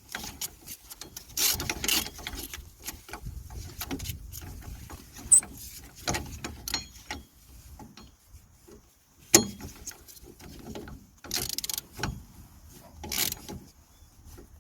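Hand socket ratchet clicking in irregular runs, with a few sharp metal clicks, as the bolts holding a new rear wheel hub bearing are tightened.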